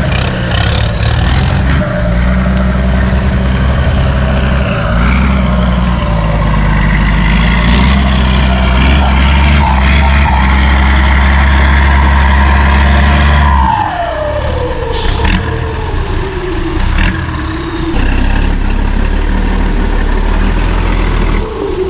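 Isuzu ten-wheeler dump truck's turbocharged 270 diesel engine pulling hard under a load of soil, with a turbo whistle over the engine note. About 14 s in the throttle comes off and the turbo whine falls steadily in pitch over several seconds. A couple of short hisses follow.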